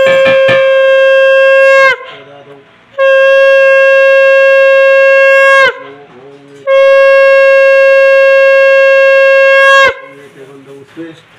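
Conch shell (shankha) blown in three long, steady blasts with short breaks between, the pitch sagging as each blast ends. A hand bell rings over the start of the first blast.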